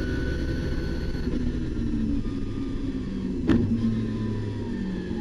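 RB26 twin-turbo straight-six of an R32 Skyline heard from inside the race car's cabin, held at high revs and then easing off as the revs fall. There is one sharp knock about three and a half seconds in.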